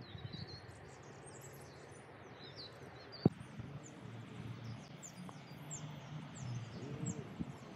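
Songbirds chirping, many short high calls scattered through, over a low steady rumble. A single sharp click about three seconds in.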